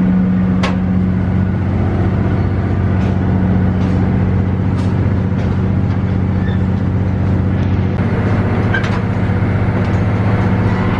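A scenic railway train running, heard as a loud, steady low drone with a few sharp clicks scattered through it.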